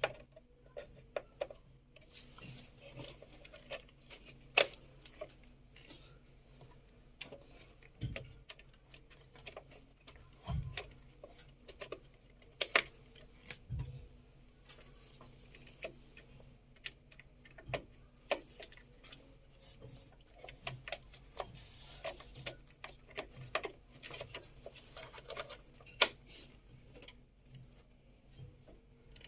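Memory modules being refitted into a desktop computer's motherboard slots: scattered sharp plastic clicks and light knocks as the parts are handled and the slot clips snap, with a few dull thumps.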